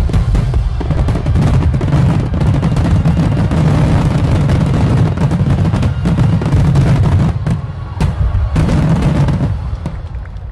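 A dense barrage of aerial fireworks shells bursting in quick succession, with booms and crackling overlapping into one continuous din. It thins out near the end.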